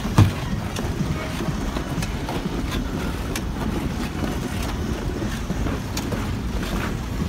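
Steady low rumble of wind on the microphone of a moving skater, with ice skate blades scraping on the ice and a single thump just after the start.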